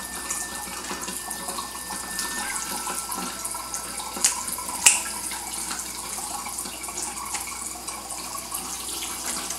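Kitchen tap running, water spraying into the sink over a whole fish, with two sharp snips about halfway through as kitchen shears cut away the gills.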